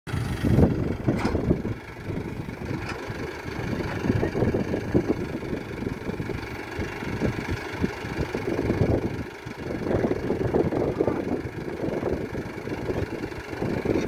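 Mahindra Arjun Novo 605 DI tractor's diesel engine running while it powers the backhoe's hydraulics as the bucket is lowered into the ground to dig; its level swells and dips.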